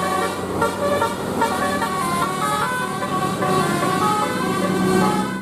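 Bus 'telolet' multi-tone air horn playing a quick tune of short notes that change pitch rapidly, over a steady low hum.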